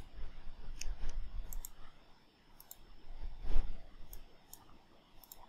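Computer mouse clicking, a series of sharp clicks, some in quick pairs, with a dull thump about three and a half seconds in.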